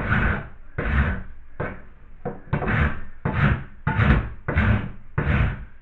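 Hand rasp scraping over hardened filler in steady back-and-forth strokes, about ten of them, roughly one and a half a second. The rasp is barely biting, with the user saying it is not even touching it.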